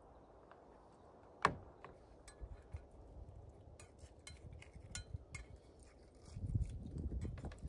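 Small hard objects being handled: one sharp clink with a short ring about a second and a half in, then scattered light clicks and knocks, with heavier low thumps near the end.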